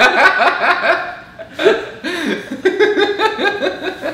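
Two young men laughing hard together, in quick repeated voiced bursts that tail off near the end.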